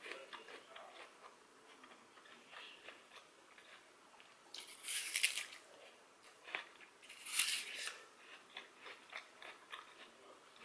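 A person biting into and chewing a crisp apple close to the microphone: two louder crunching bites about halfway through and again a couple of seconds later, with small wet chewing clicks and smacks around them.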